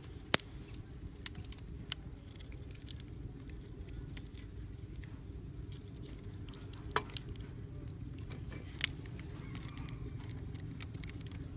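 A handful of sharp clicks and taps from hands working rubber bands around a PVC pipe, the loudest about half a second in, over a steady low rumble.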